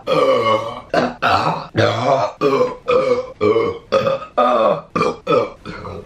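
A woman belching loudly over and over: about a dozen separate burps in quick succession, each a short pitched belch that bends as it goes.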